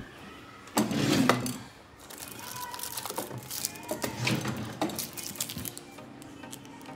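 Handling noise: a loud rustle about a second in, then scattered light clicks and rustles, with some plastic crinkling as a small remote control in a plastic sleeve is picked up.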